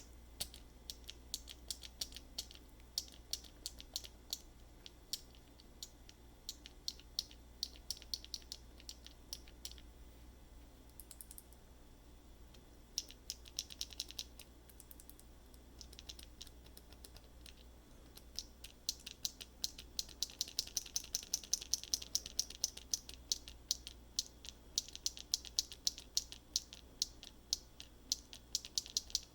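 Prototype 3D-printed keyboard key switches pressed over and over by hand, each press a sharp click. The clicks come irregularly at first, then in a fast run of about three to four a second from about two-thirds in.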